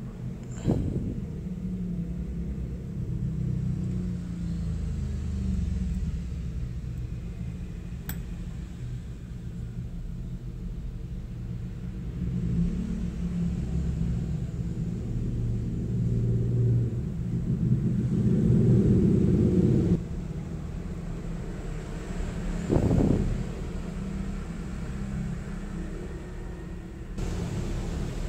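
Low, uneven background rumble, with a soft knock about a second in, a brief sharp click, and another knock later on.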